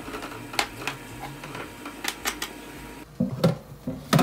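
Knife scraping and tapping crumbled raw sausage off a plastic cutting board into an aluminium pot: a string of sharp clicks, then a few louder dull knocks near the end.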